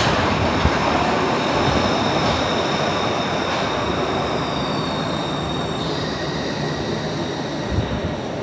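A new Stadler-built Glasgow Subway train runs into an underground platform and slows, with a dense rumble and high-pitched squealing tones from the wheels and running gear. One of the tones falls in pitch about halfway through as the train slows.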